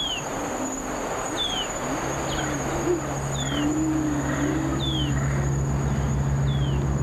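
Short falling bird chirps repeating about every second and a half over a steady high insect-like whine, joined about two seconds in by the steady low hum of a boat's engine running.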